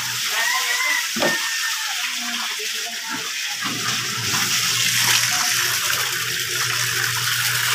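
Water running from a tap and splashing in a basin as laundry is washed by hand, a steady hiss with small splashes.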